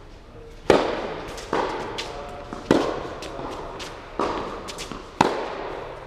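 Tennis rally in an indoor hall: a serve struck with a sharp pop under a second in, then racket hits and ball bounces trading back and forth, each impact followed by a ringing echo off the hall. The serve and two later shots by the near player are the loudest hits.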